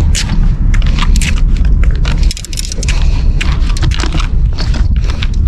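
Wind buffeting an action camera's microphone in a heavy, steady low rumble, with many irregular clicks and knocks from the camera and gear being carried along on foot.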